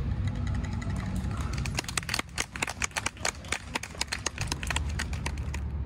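Outdoor ambience: a steady low rumble with a dense run of sharp clicks and crackles from about a second and a half to four and a half seconds in.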